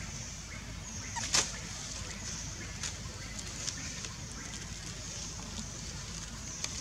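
Outdoor background noise: a steady low rumble under a high hiss that pulses on and off, with a few short clicks or rustles, the loudest about a second and a half in.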